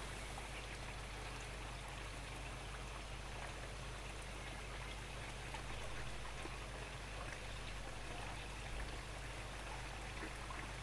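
Steady trickling, splashing water of a koi pond.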